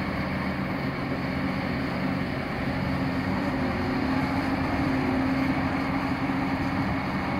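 Construction machinery engine running steadily: a low, even hum that holds the same pitch throughout.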